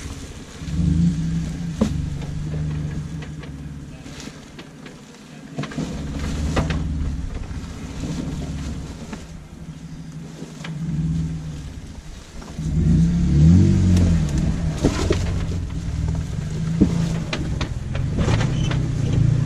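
Off-road vehicle engine running at low speed and revving up and down in pulses while crawling, with the loudest rev about two-thirds of the way through. Scattered sharp knocks and clunks are heard over the engine.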